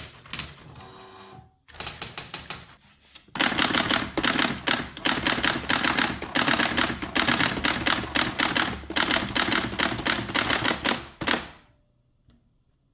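Typewriter typebars striking in quick succession as keys are typed. Quieter, sparser clicking in the first few seconds gives way to a loud, fast run of typing from about three seconds in, which stops shortly before the end.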